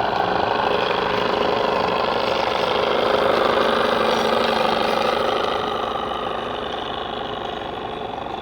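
A small engine running steadily, growing fainter from about five seconds in.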